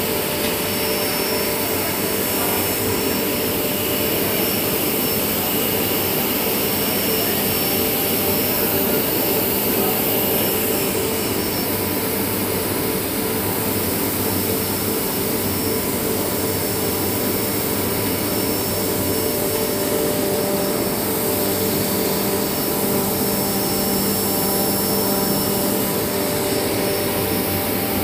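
Large industrial washing machines running: a loud, steady machine drone with several steady hums through it.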